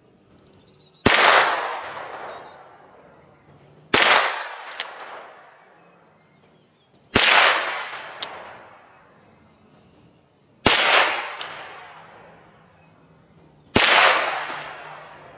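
Henry AR-7 semi-automatic .22 Long Rifle survival rifle firing five shots, about three seconds apart, each sharp crack trailing off over a second or two.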